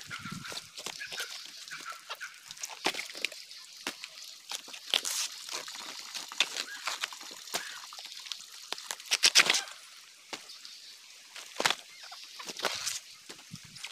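Banana pseudostem being stripped by hand: its leaf sheaths crack, snap and tear off in irregular bursts, with the loudest cluster of snaps about two-thirds of the way through.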